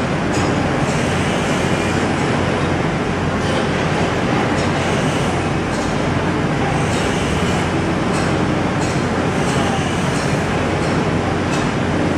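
Steady running noise heard from inside a rubber-tyred Bukit Panjang LRT car, with a constant low hum and faint light ticks now and then.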